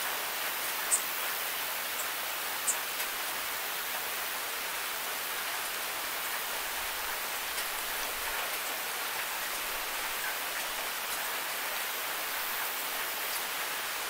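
Steady rain falling, an even hiss, with a couple of sharp, close drop ticks in the first three seconds.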